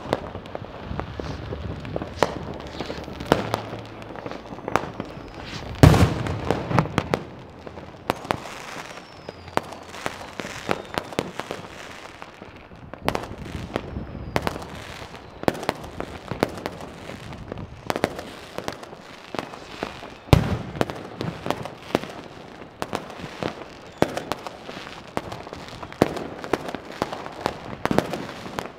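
New Year's Eve fireworks and firecrackers going off all around, an irregular barrage of bangs near and far over continuous crackling. The two loudest bangs come about six seconds in and about twenty seconds in.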